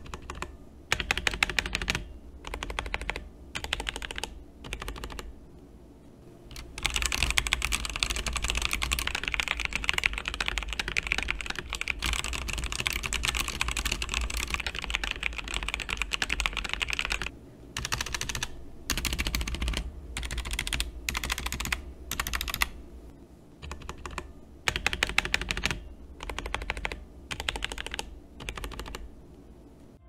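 Typing on a Leaven K550 87-key budget mechanical keyboard: rapid key clacks in short spells with brief pauses between them, and one unbroken run of about ten seconds in the middle.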